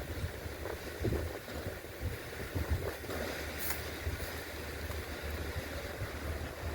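Wind buffeting the microphone: an uneven low rumble under a steady hiss, with a short sharper hiss about three and a half seconds in.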